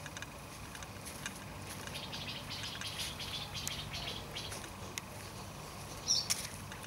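Small birds chirping and twittering in garden trees, thickest in the middle, with one louder, sharper call about six seconds in.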